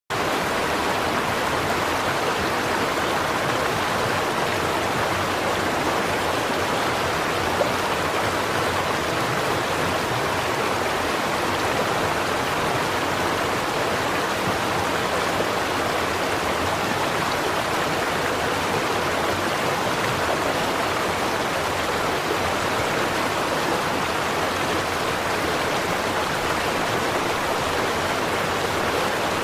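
A stream of running water flowing and splashing with a steady rush.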